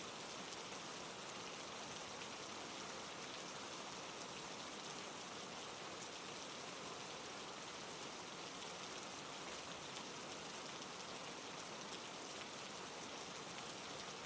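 Steady rain falling: an even hiss with fine, scattered drop ticks.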